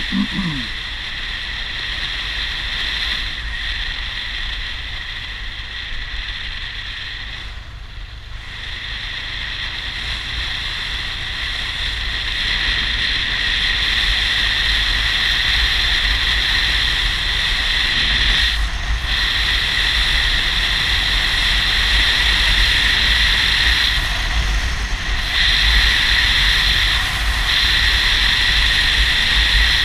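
Wind rushing over the microphone of a motorcycle rider's helmet camera, with the motorcycle's engine and tyres rumbling low underneath. The rush dips about eight seconds in, then grows louder as the bike picks up speed, dipping briefly twice more.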